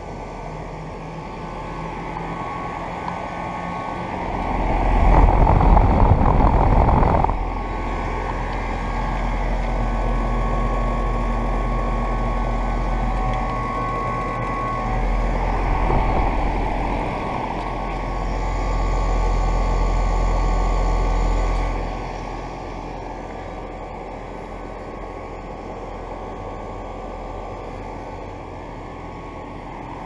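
Lennox S-Class 5-ton central air conditioner condensers running: steady fan whoosh and compressor hum with a faint high tone. The rush of air swells several times, loudest about five to seven seconds in, as the fan's outlet blows across the microphone.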